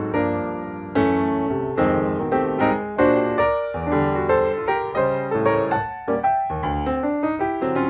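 Background piano music: a gentle melody of struck notes, a couple a second, each fading away.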